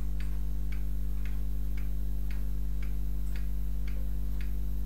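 Regular ticking clicks, about two a second, over a steady low electrical hum.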